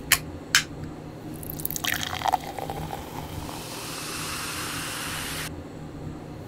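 Aluminium soda can: two short clicks of the pull tab just after it is opened, then cola poured into a paper cup, splashing and then fizzing with a steady hiss that cuts off about five and a half seconds in.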